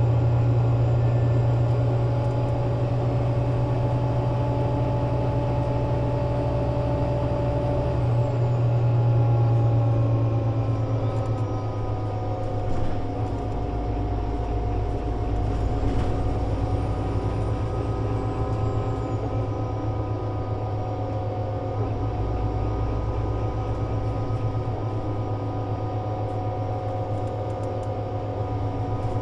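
Solaris Urbino 18 IV articulated city bus heard on board while running: its DAF diesel engine and Voith Diwa 6 automatic gearbox give a steady hum with a whining tone above it. The note changes about eight seconds in, then settles again.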